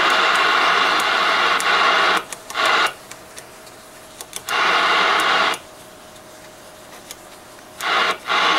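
Loud hiss of receiver static from a Pearce Simpson Cheetah sideband CB radio's speaker. It cuts off abruptly and comes back several times, with scattered faint clicks.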